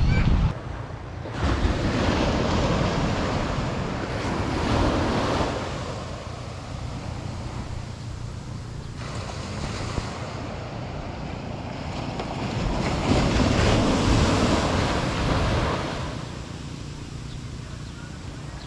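Surf breaking and washing on a beach in slow swells, with wind rumbling on the microphone.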